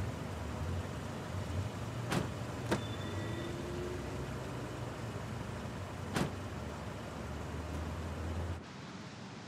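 A car's steady low engine-and-road rumble. A car door clicks open about two seconds in, with a second click just after, and the door shuts with a knock about six seconds in. The rumble cuts off suddenly near the end.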